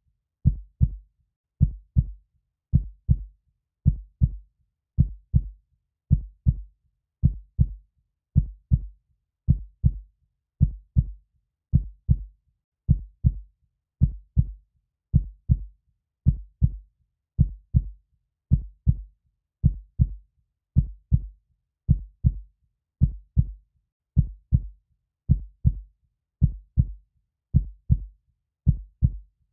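Heartbeat, a steady slow lub-dub: pairs of short, low thumps repeating evenly at about one beat a second.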